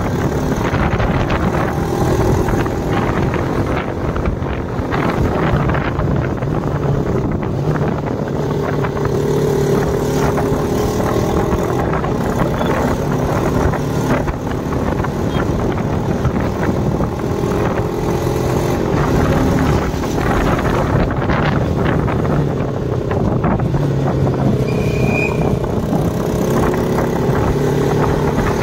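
Motorcycle engine running on the move, its pitch drifting up and down with speed, with wind noise over it. A brief high beep sounds near the end.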